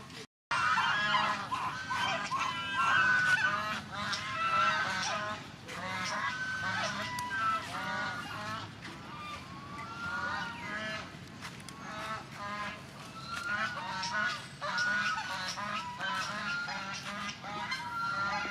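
A chorus of many short honking animal calls, overlapping and repeating without a break, after a brief dropout just after the start.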